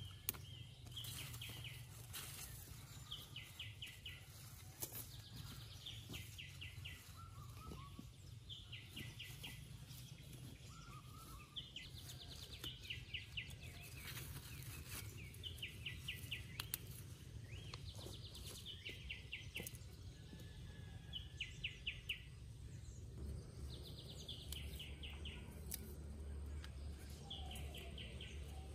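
A bird sings a short, fast run of high notes, repeated every couple of seconds, over a steady low rumble. Occasional faint snaps and leaf rustles come from pods being picked off the vines by hand.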